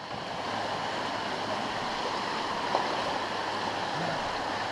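Shallow river flowing over rocks, a steady wash of rushing water.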